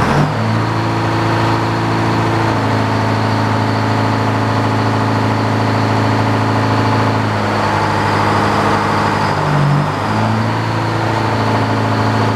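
The engine powering an old Frick sawmill, running steadily just after being started. Near the end, the note dips briefly and then recovers.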